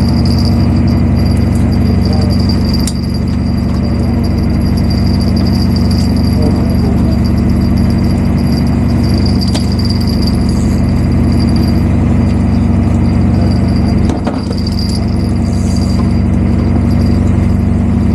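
Boat engine running steadily, with a thin high-pitched whine held over it.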